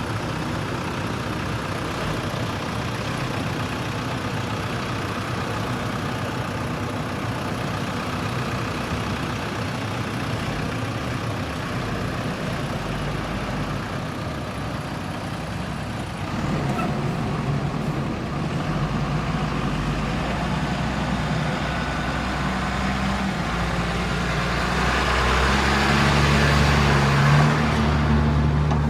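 JCB 3DX backhoe loader's diesel engine running steadily. About halfway through it becomes louder and deeper, and it works harder near the end.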